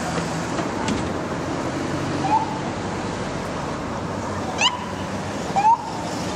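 Police vehicle sirens giving short rising chirps over steady street traffic noise: a faint chirp about two seconds in, then two sharper ones in the second half, the last the loudest.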